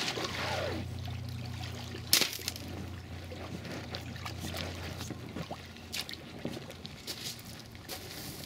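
Water trickling and sloshing around a kayak as it is paddled in to land, with a sharp knock about two seconds in and a few lighter clicks later.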